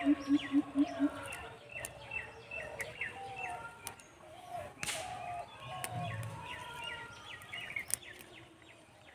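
Small birds chirping repeatedly outdoors, with a quick run of about five low, evenly spaced hooting notes in the first second that stops abruptly, and a single sharp knock about five seconds in.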